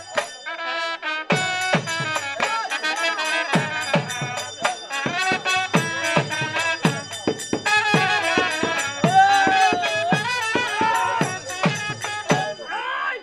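Live village folk music: a dhol drum beating a quick, steady rhythm while a wind instrument plays a bending, ornamented melody over it. The music breaks off briefly about a second in, then runs on.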